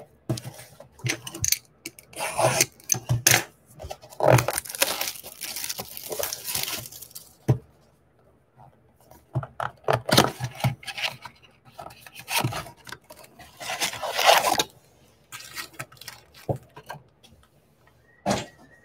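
A cardboard Topps Fire trading-card blaster box being torn open by hand, in irregular bursts of tearing, crinkling and scraping as the card packs are worked out of it. There is a short knock near the end.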